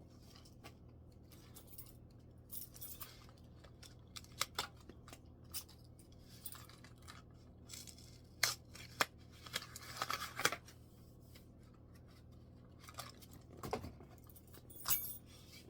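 Cardboard packaging being handled and pulled off a string trimmer during unboxing: scattered short clicks, scrapes and rustles, a few sharper ones about two-thirds of the way through and near the end.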